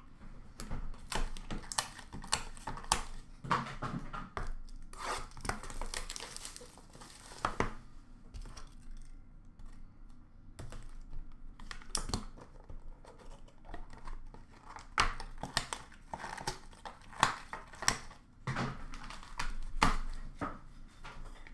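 Wrapping being torn and crinkled as a trading-card box is opened, with a longer stretch of tearing about five seconds in. Scattered clicks and taps come from the cardboard box and card case being handled.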